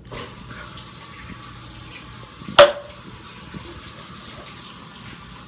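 Water running steadily from a kitchen tap, starting suddenly. About two and a half seconds in there is one loud, short sound.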